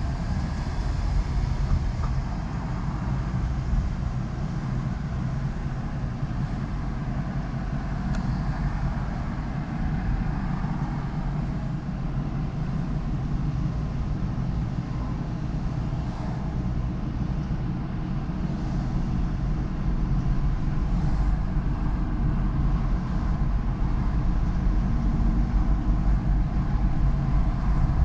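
Car driving on city streets: steady engine and tyre noise with a low rumble, a little louder about two-thirds of the way through.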